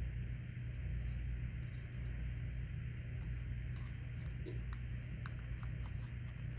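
Steady low electrical hum, with faint small clicks and ticks of a plastic pry card being worked under a smartphone's glued back glass.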